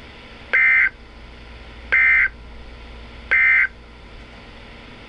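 Emergency Alert System end-of-message signal: three short, identical bursts of SAME digital data tones, each about a third of a second long and spaced about a second and a half apart. A steady radio hiss runs underneath. The bursts mark the end of the alert broadcast.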